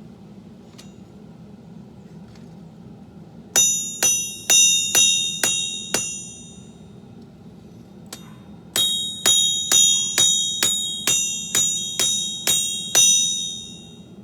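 Hand hammer striking steel on an anvil while forging a blade, in two runs of blows, about six and then about ten, roughly two a second. Each blow rings out bell-like. A steady low hum runs underneath.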